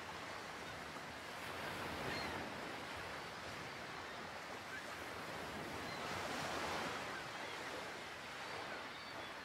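Ocean surf washing ashore: a soft, steady hiss of waves that swells gently a couple of times.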